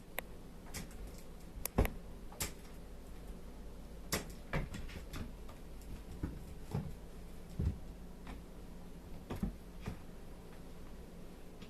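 Scattered light clicks and a few soft thumps at irregular intervals, over a faint steady low hum.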